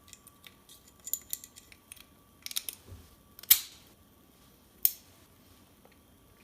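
Small steel parts of a Ruger GP100 revolver clicking and scraping as the trigger group is fitted back into the frame, with two sharp metallic clicks past the middle, the first the loudest.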